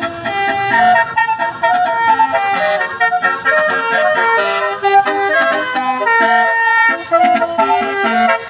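Basuri 'telolet' musical horn on a tour bus playing a melody, loud, its notes stepping to a new pitch several times a second, sometimes two sounding together.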